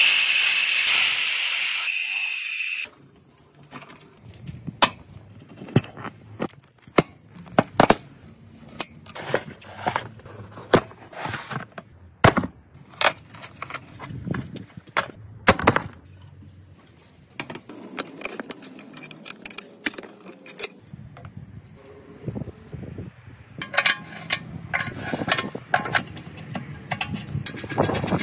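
A spinning power tool grinding rust off steel, loud and steady for about three seconds, then cutting off. A long run of scattered sharp clicks and knocks follows as a rusty spoked wheel and its torn tyre are worked on. Near the end comes a rasping scrape of a steel blade lifting flaking rust.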